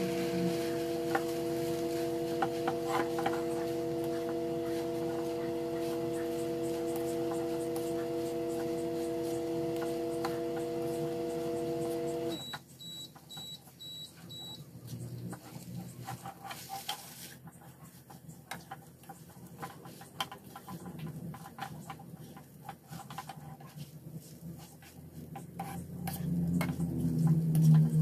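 A plastic spatula stirring and scraping rice around a nonstick wok, with frequent small clicks. A kitchen appliance hums steadily until about twelve seconds in, then cuts off suddenly and gives four short high beeps. The stirring grows louder near the end.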